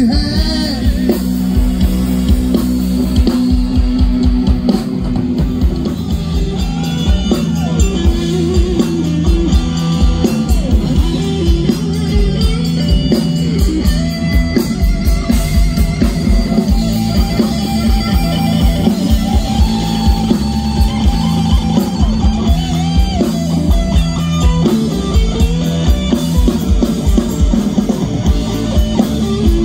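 Rock band playing: electric guitars over a drum-kit beat, with no singing.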